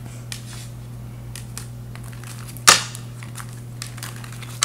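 Tarot cards being shuffled by hand: faint ticks and flicks of card edges, with one sharp snap of the deck a little over halfway through and a smaller one at the end. A steady low hum runs underneath.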